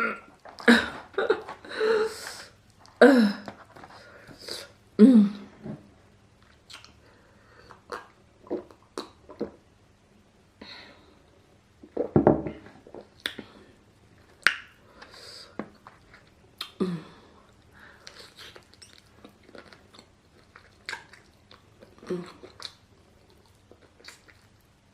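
A person chewing and biting grilled chicken close to the microphone: irregular wet mouth clicks and smacks throughout, with a few short voiced sounds in between.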